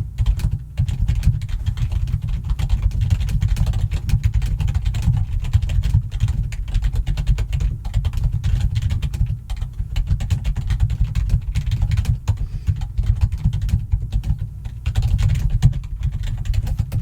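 Fast, continuous typing on a computer keyboard, dense keystrokes with a deep, thudding low end, broken by a few short pauses.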